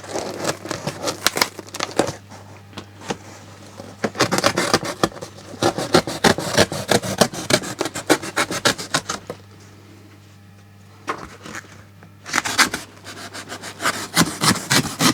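A cardboard box being opened and its contents handled: repeated scraping and rubbing strokes with quick crackly clicks, coming in runs. There is a short quiet pause about ten seconds in.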